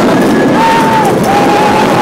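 Roller coaster train running along its steel track: loud rushing wind and rumble on the phone's microphone, with a wavering high held tone over it that breaks off about a second in and comes back.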